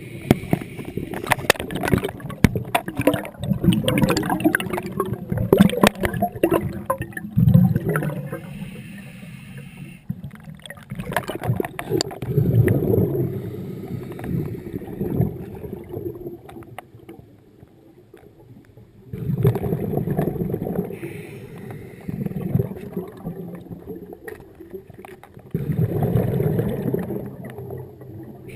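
Scuba diver's exhaled bubbles gurgling from a regulator underwater, in bursts every six or seven seconds with each breath, with a run of sharp clicks and bubble pops in the first several seconds.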